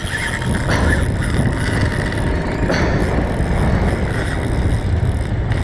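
Steady low rumble of a small boat's outboard motor running slowly, with wind on the microphone.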